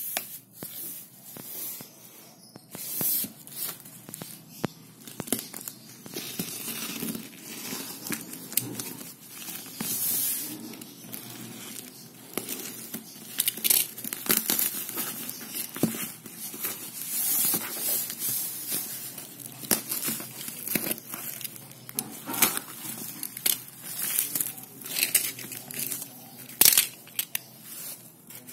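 Packaging being unboxed by hand: irregular crinkling and tearing of wrapping, with scattered clicks and light knocks.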